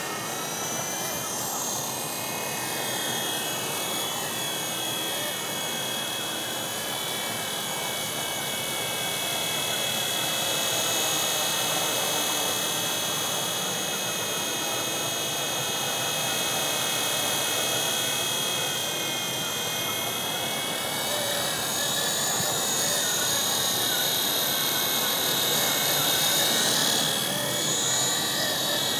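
WLToys V915 fixed-pitch RC helicopter in flight: the high whine of its Esky 370 electric motor and gears over the whirr of the rotor. The pitch rises and falls as the throttle changes.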